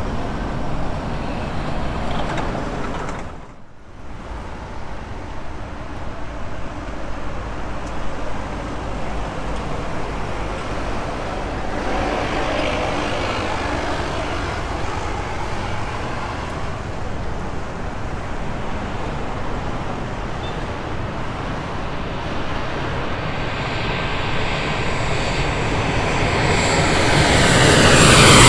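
Road traffic passes for the first few seconds, then the sound cuts. After that, a Boeing 737-800 freighter's twin CFM56 jet engines on landing approach grow steadily louder over the last few seconds as it comes low overhead, with a falling whine near the end.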